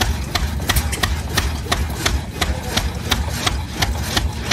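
Small antique engine-driven drag saw running on a log, with a sharp, even beat about three times a second over a steady low throb.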